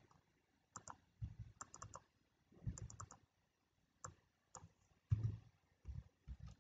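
Faint tapping of computer keyboard keys in short, scattered groups of two to four keystrokes, with a few duller taps in the second half.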